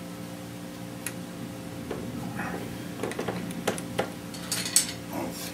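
Small metal clicks and clinks from hand tools and bolts being handled: a single click about a second in, a few more around three to four seconds, and a louder cluster near the end. A steady low hum runs underneath.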